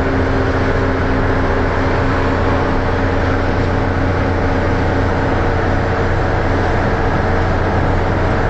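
Leyland Titan double-decker bus engine running steadily while the bus is under way, heard on board as a loud, deep drone. A few higher engine tones fade out about three seconds in.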